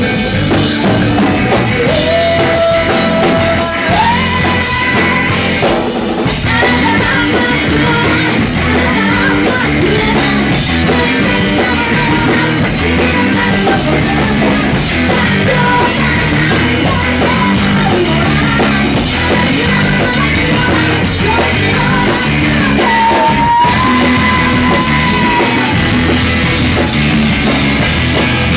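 Math rock band playing live: two electric guitars, electric bass and a drum kit, loud and busy, with a woman singing over it.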